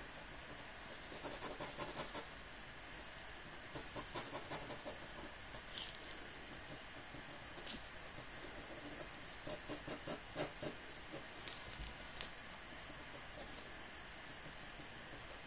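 Pen tip scratching on paper as ink lines are drawn, in clusters of quick short strokes with pauses between them and a few longer scrapes.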